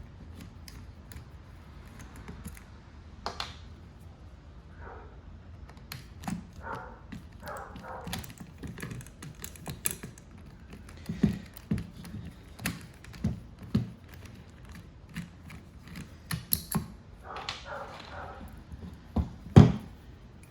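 Scattered clicks, knocks and small metal clinks of a Phillips screwdriver and parts being handled while a car power-antenna motor unit is taken apart and its bracket screws are removed. A louder knock comes near the end.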